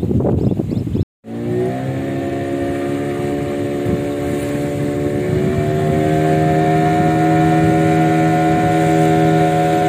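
A motor boat's engine running. After a short break about a second in, its pitch rises as it speeds up, then holds a steady drone that climbs slightly about halfway through.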